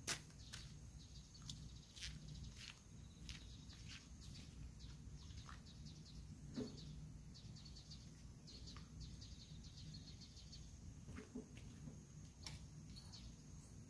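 Faint outdoor ambience: scattered short bird chirps over a steady high insect tone and a low background rumble.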